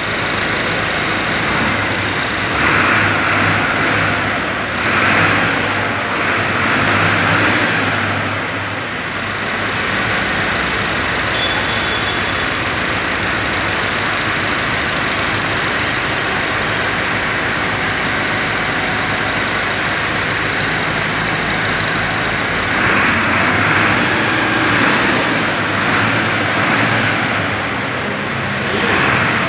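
Diesel engine of a brand-new Buraq B-4100 tractor running steadily, being tried out for how it sounds. It grows louder twice for a few seconds, about three seconds in and again near the end.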